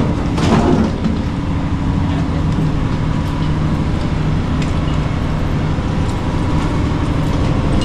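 Moored passenger ferries' diesel engines idling: a steady, loud low drone with a constant hum.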